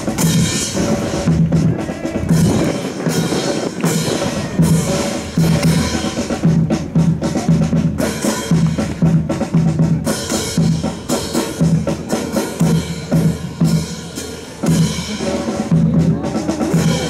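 Marching drum cadence: snare and bass drum beating a steady rhythm to keep time for a rifle drill squad.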